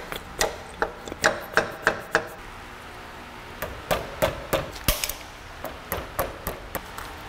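A small hammer tapping on the steel band clamp of a CV axle boot. There are a dozen or so sharp taps in short bursts, lighter near the end.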